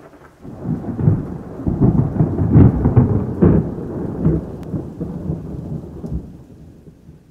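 A long, low rolling rumble with crackles, swelling about half a second in, loudest in the middle and dying away near the end.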